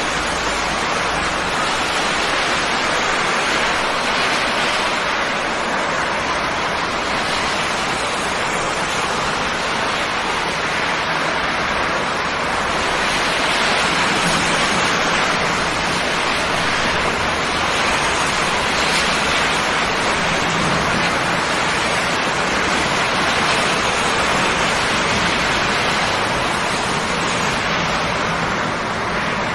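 Steady rain falling on a river, a dense even hiss of drops on the water surface.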